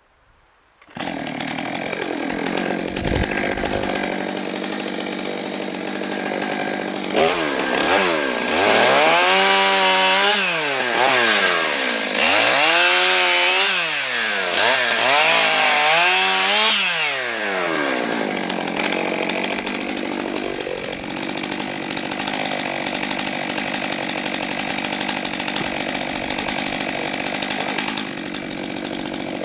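A 91 cc Stihl MS 661 C-M two-stroke chainsaw starts running about a second in. In the middle its engine speed rises and falls four times, then it holds steady, easing off slightly near the end.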